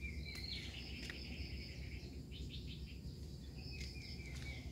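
Faint, steady high-pitched chirring of insects, with a short, slightly falling call heard twice, once at the start and again near the end, over a low rumble.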